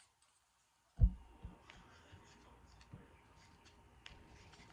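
Tarot cards handled on a table: a low thump about a second in and a softer one just after, then faint rustling with scattered light clicks.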